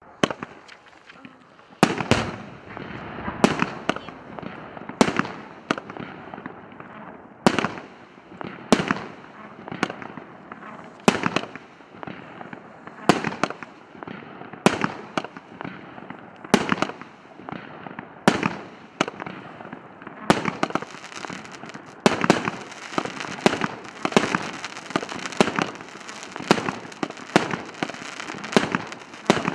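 A 100-shot firework cake of 1.25-inch (32 mm) shells firing shot after shot, a sharp bang about every second to second and a half with crackling between. About two-thirds of the way through, the shots come faster and the crackle thickens.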